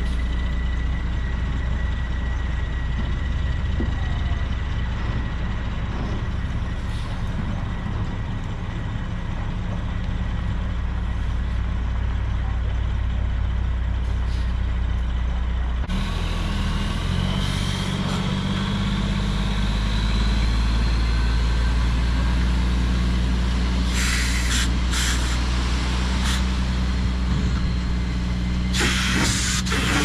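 Semi truck's diesel engine running with a steady hum; about halfway in the engine note changes and a rising whine comes in as the belly-dump rig pulls forward laying its load. Several short bursts of compressed-air hissing come near the end.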